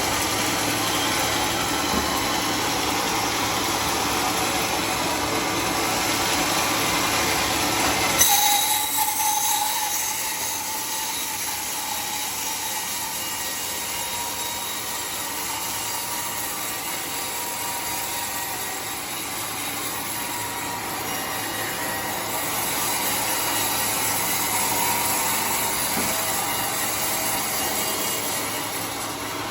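Homemade circular-saw sawmill running on a teak log. About eight seconds in there is a sharp bang with a brief ringing tone, and the machine runs quieter after it, then grows louder again near the end.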